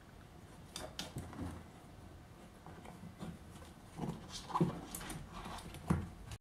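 A cat moving about beside a plastic pet carrier: scattered light taps and knocks with a few low thumps, the loudest a little after four seconds and again near the end.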